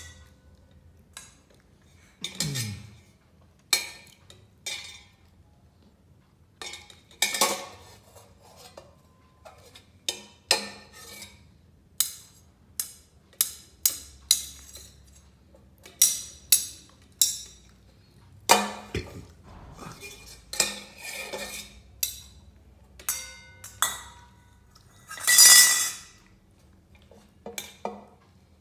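Stainless steel cooking pot, ladle and bowl clinking and clanking irregularly as a toddler bangs and stirs them, with sharp metal knocks every second or so. The loudest, longer metal clatter comes near the end.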